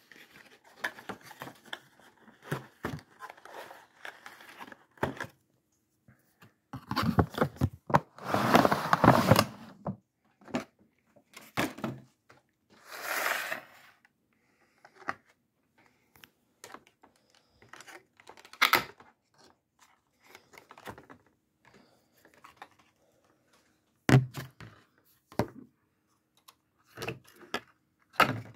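A cardboard model-locomotive box and its clear plastic packaging being opened and handled: scattered knocks and clicks, with a few longer stretches of rustling and tearing about a third and halfway through.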